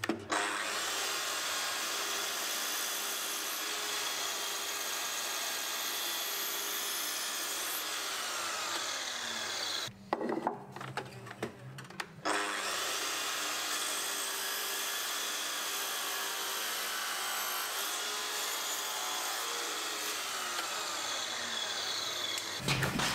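Sliding mitre saw cutting a housing into a block of timber, the spinning blade worked across the wood pass after pass to trench it out. It runs for about ten seconds, stops briefly with a few knocks, then runs again for another ten seconds.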